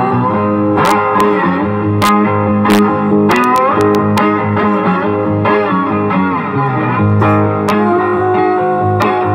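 Hollow-body electric guitar played through an amplifier, picking single notes and chords with notes bending and sliding in pitch.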